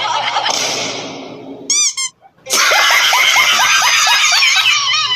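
A loud, dense jumble of many overlapping high cartoon voice clips and squeaks layered on top of each other. It cuts out for a moment about two seconds in, with two short squeaky chirps just before the gap, then resumes as a rapid run of short repeated yelps.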